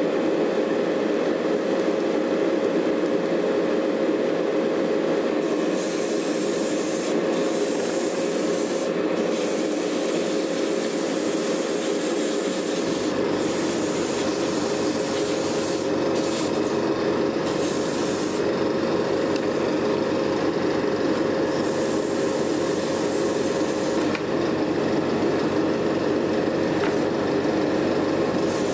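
Paint being sprayed onto plastic model tank road wheels: a hiss that comes in spells of one to a few seconds with short breaks, starting about five seconds in. Under it runs a steady hum with one constant tone.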